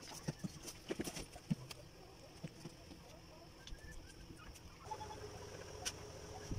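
Scattered light taps and scuffs from a dog and a person's hands shifting on a plastic crate floor, over a steady hiss. About five seconds in, a steady low hum starts suddenly.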